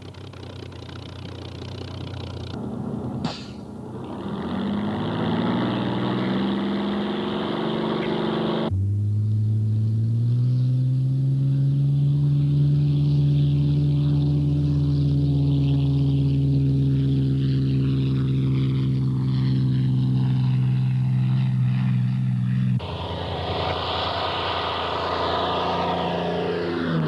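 Supermarine Spitfire's V12 piston engine at takeoff power, the sound swelling over the first several seconds. A long steady drone follows, its pitch sagging slowly as the aircraft passes, with abrupt changes in sound where the shots cut.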